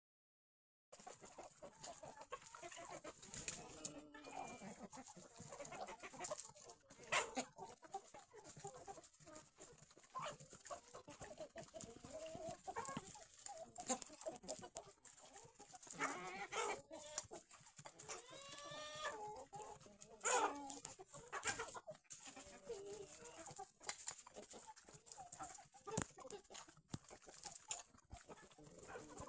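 A flock of hens clucking in short, irregular calls, with scattered sharp clicks, a few of them loud.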